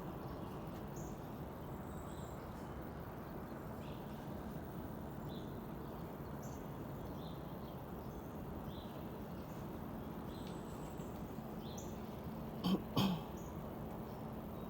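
Steady outdoor background hiss with faint, short high chirps scattered through it. About thirteen seconds in come two short, loud huffs in quick succession.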